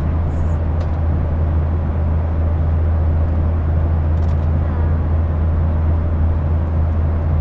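Airliner cabin noise in cruise flight: the steady, loud rush of the jet engines and airflow, with a strong constant low hum.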